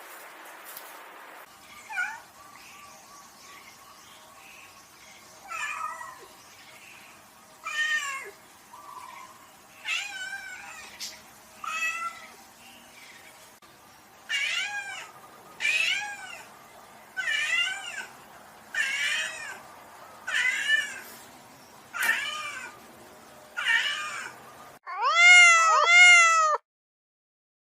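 Domestic cat meowing over and over, each meow rising then falling in pitch, about one every one and a half seconds and louder about halfway through. Near the end two loud meows come in quick succession.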